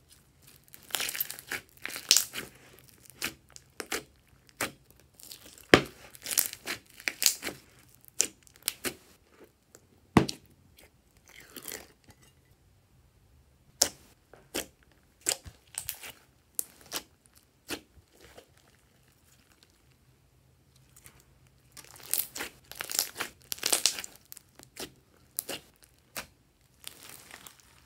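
Hands squeezing, poking and folding glossy slime mixed with foam beads, giving clusters of sticky clicks and pops with short quiet pauses and a longer lull in the middle.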